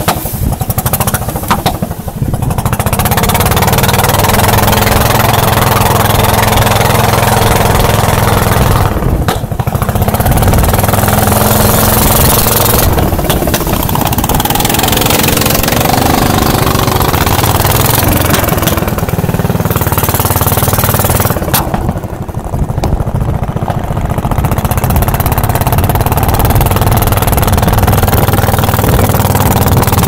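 Small wooden motorboat's engine running steadily at cruising speed, with water rushing along the hull. The rush of water briefly drops away a few times.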